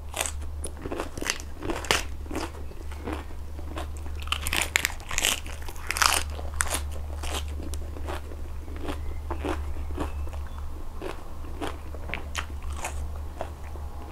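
Close-miked crunching of crisp raw lettuce being bitten and chewed: irregular crisp crackles, several a second in the first half, thinning out after about seven seconds, over a steady low hum.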